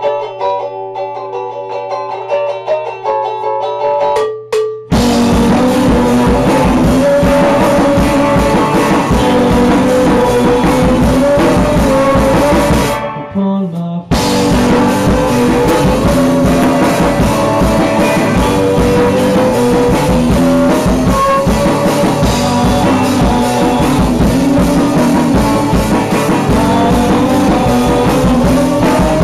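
Rock band playing live in a small room: a guitar picks notes over a steady low hum for the first few seconds, then drums, cymbals and guitars come in loud about five seconds in. The band stops abruptly about thirteen seconds in and starts again a second later.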